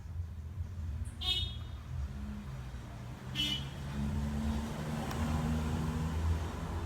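Background traffic: a steady low vehicle rumble, with two short high toots about a second in and about three and a half seconds in.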